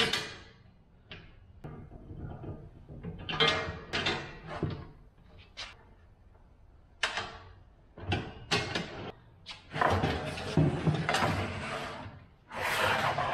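A steel sprayer frame and its parts being handled on a wooden workbench: a string of separate knocks and clanks, then longer scraping and shuffling noise in the last few seconds as the frame is shifted across the bench.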